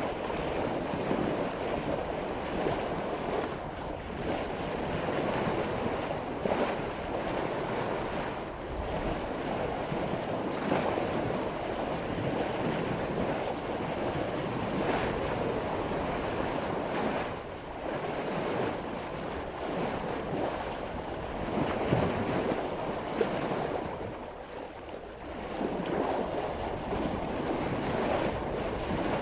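Water rushing and splashing along the bow of a sailboat as it cuts through ocean waves at about 5 knots, rising and falling with the swell, with wind buffeting the microphone.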